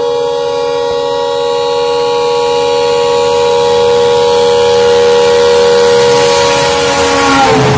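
Horn of a WDP-class diesel locomotive sounding one long continuous blast as the train comes through at about 110 km/h. Its pitch drops sharply near the end as the engine passes, and the rush of the train rises.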